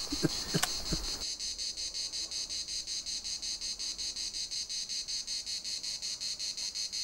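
Cicadas chirping high-pitched in a steady, even pulse of about five chirps a second.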